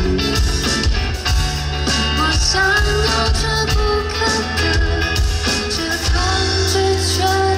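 Live band playing a song: a singer's voice over guitar, bass and drums.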